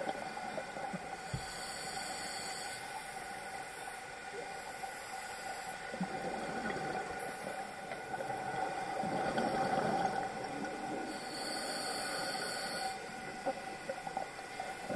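Scuba regulator breathing underwater: hissing inhalations, two strong ones about ten seconds apart, with bubbling exhalations between them, over a steady hum.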